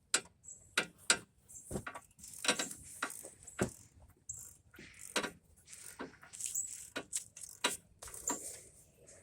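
Irregular sharp metallic clicks and clinks of a hand wrench working on steel, about two a second, as the brake caliper bracket bolts are tightened back up.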